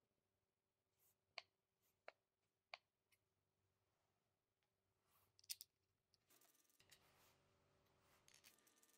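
Near silence broken by a few faint, sharp clicks and taps of plywood jig rail pieces being handled and shifted against each other: three about a second and a half in to three seconds in, and a couple more around the middle.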